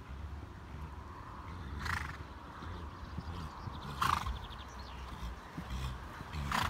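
A ridden horse snorting three times, each a short, noisy blow, about two seconds apart.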